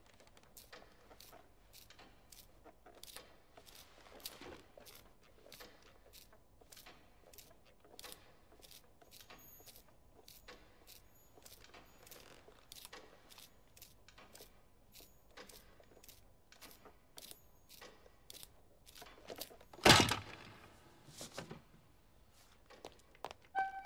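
Faint, irregular clicks over quiet room tone, and one loud thud about twenty seconds in.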